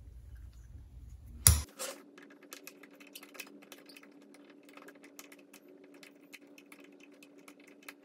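Light, irregular metallic clicks and ticks of a screwdriver turning the main jet assembly into a Briggs & Stratton carburetor body, after one sharp knock about a second and a half in.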